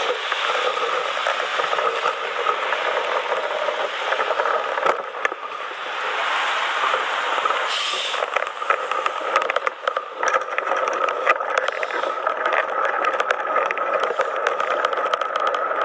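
Steady vehicle noise with a faint steady whine, broken by frequent clicks and crackles.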